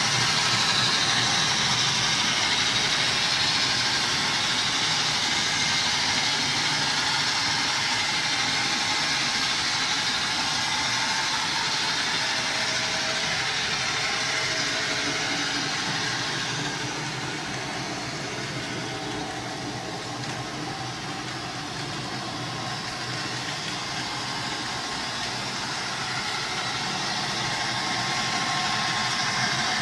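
HO-scale model train running on the layout, a steady rushing mechanical sound with a faint whine, fading somewhat about halfway through and building back up near the end.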